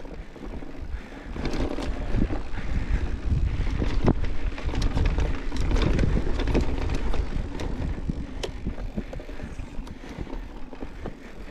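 Mountain bike riding down a rough trail: tyres rumbling over dirt and rocks, with many sharp clicks and rattles from the bike, and wind on the microphone.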